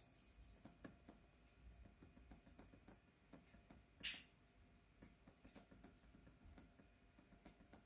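Near silence: room tone with scattered faint clicks, and one short hiss about four seconds in.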